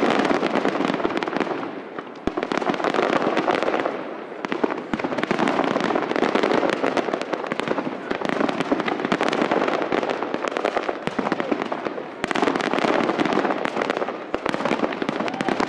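Fireworks display: a dense, continuous crackling and popping of many bursting shells. It swells and fades in waves, with short lulls about two seconds in, near four seconds and again near twelve seconds.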